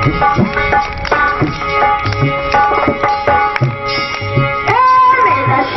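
Instrumental ghazal accompaniment: tabla playing a steady rhythm under a melodic instrument line, with a long held note entering near the end.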